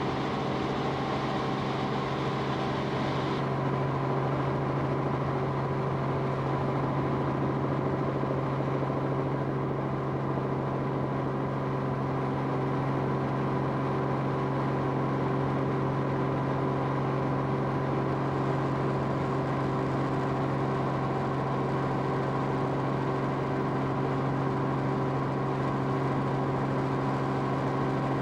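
Aircraft engine drone heard from inside the cabin: a steady hum made of several fixed tones, with an airy hiss over it that drops away a few seconds in.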